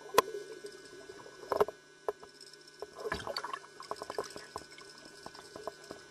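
Underwater water sound as a small diving lure is retrieved: a soft gurgling hiss broken by scattered sharp clicks and crackles, the loudest about a quarter of a second and a second and a half in, with faint steady tones beneath.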